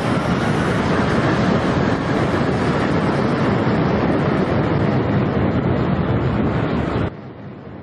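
Jet blast from a large aircraft's engines at takeoff thrust: a loud, steady rush of noise with wind and blown sand buffeting the microphone. It stops suddenly near the end.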